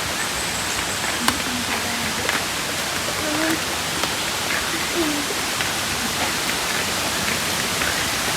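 Waterfall rushing steadily, an even hiss of falling water, with one sharp click about a second in.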